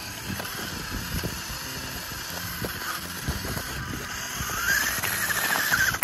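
Remote-control model tractor's electric drive whining as it pulls a trolley loaded with soil, over light crunching and knocks; about four and a half seconds in the whine rises in pitch and gets louder.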